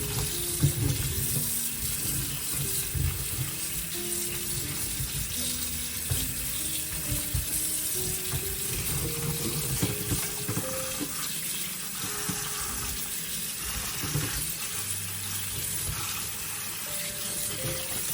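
Water running steadily from a kitchen tap into a sink, with occasional low knocks, over soft background music.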